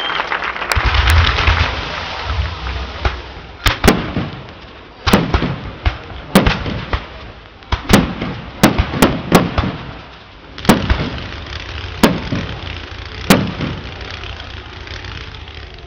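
Aerial fireworks bursting, about a dozen sharp, echoing bangs at irregular intervals over a low rumble that is heaviest in the first two seconds.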